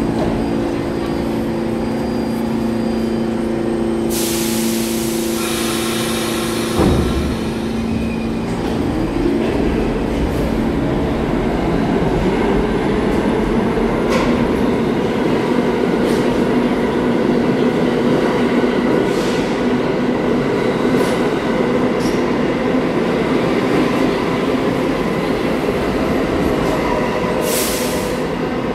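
New York City subway train. It hums with steady tones, then gives a loud burst of hiss about four seconds in that ends in a thump. Its running noise builds from about nine seconds in, and a second short hiss comes near the end.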